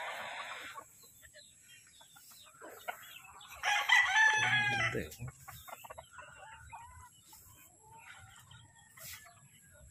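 A rooster crows once, about four seconds in, with softer chicken clucks scattered before and after.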